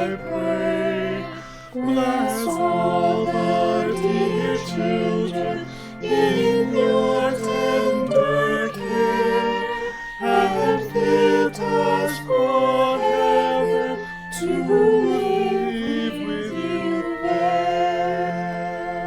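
Music: voices singing a slow melody with a wavering vibrato over steady held low accompanying tones.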